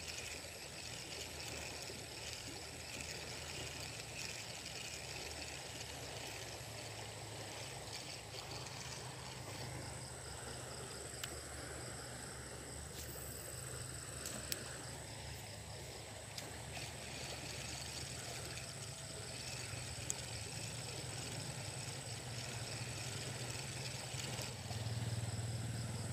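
Riverside outdoor ambience: a steady high buzz of insects over a faint low hum, with a few faint clicks in the middle.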